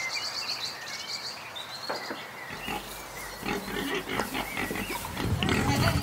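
A group of free-range pigs grunting. The grunts start about halfway through and grow louder toward the end.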